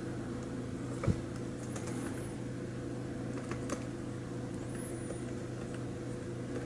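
A few scattered clicks of laptop keys being pressed, with a single sharper knock about a second in, over a steady low hum in the room.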